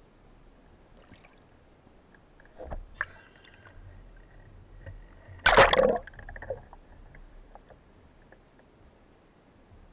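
Underwater water noise with scattered small clicks and knocks, and a loud sudden rush of bubbling noise about halfway through that lasts about half a second.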